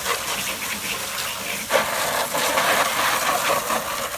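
Water spraying hard and splashing as the inside of a fridge is rinsed out.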